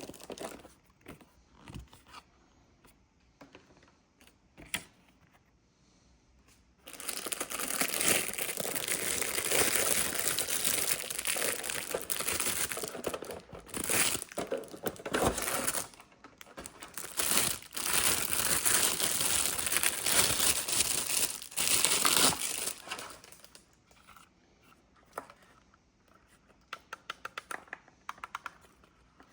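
Packaging being unwrapped by hand: a few light clicks and rustles, then from about seven seconds in some fifteen seconds of continuous crinkling and tearing, then quieter handling with a quick run of small ticks near the end.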